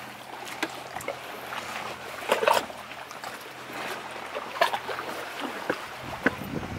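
Footsteps crunching on rough volcanic rock, a few irregular steps, over sea water lapping and trickling against the rocks.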